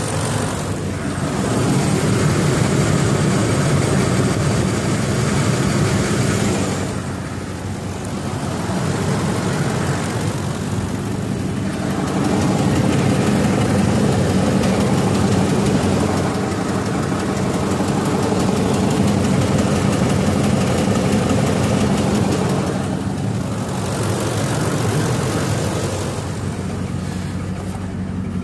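2004 Ford F-150's 5.4-litre V8 running, getting louder and quieter several times, with the ticking noise that the owner says is common to this engine and that remained after new VCT solenoids cured its dieseling sound.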